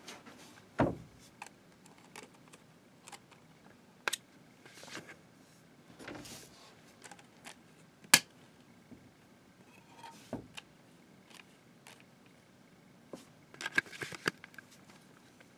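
Faint handling of a plastic multi-disc DVD case and its discs: scattered clicks and taps, with a sharp click about eight seconds in as a finger presses a disc on the case's centre hub, and a cluster of clicks near the end.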